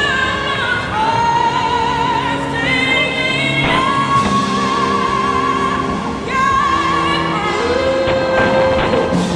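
Music with a singer holding long notes in an operatic style, the pitch moving to a new note every second or two.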